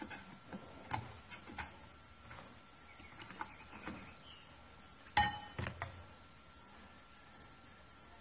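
Scattered light clicks and metallic clinks of steel transmission parts being handled inside an automatic transmission's reverse clutch drum as the snap ring and return-spring retainer are worked out by hand. The sharpest clink, with a short ring, comes about five seconds in.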